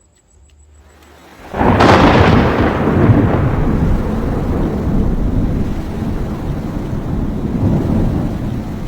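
Thunder: quiet at first, then about a second and a half in a sudden loud crack that rolls on into a long, heavy rumble of a thunderstorm.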